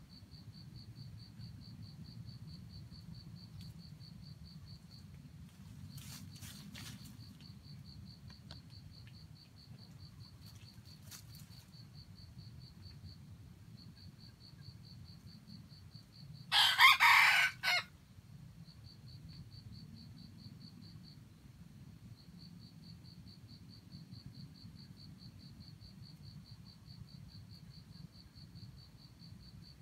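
A red junglefowl rooster crows once, a short crow lasting about a second, just past the middle. Insects keep up a steady, fast-pulsing high chirr throughout.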